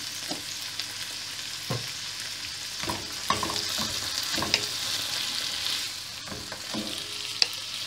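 Chickpeas, carrots and tomato sizzling steadily in a frying pan with a little water, while a wooden spoon stirs them, scraping and knocking against the pan now and then.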